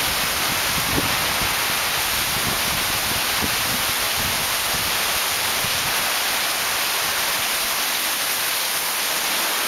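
Heavy rainstorm: a dense, steady hiss of downpour falling on garden foliage and paving.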